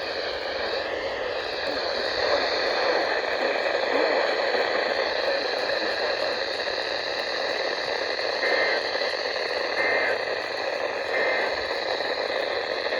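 Weather radio receiver hissing with static on a weak, barely received station, faint wavering tones drifting under the noise. Three short tones sound in the second half.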